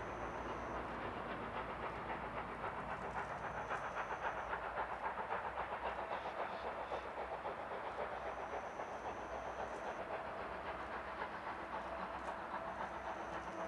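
Steam locomotive C58 239, a C58-class tank-tender engine, working hard with a heavy load: its exhaust beats in a fast, even chuffing rhythm. The thick black smoke shows it is working hard.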